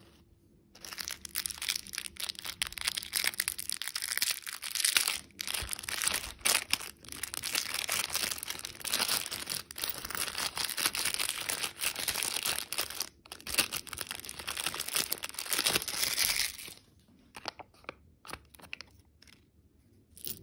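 Plastic candy wrapper crinkling and tearing as it is handled, a dense continuous crackle that stops suddenly near the end, leaving a few faint clicks.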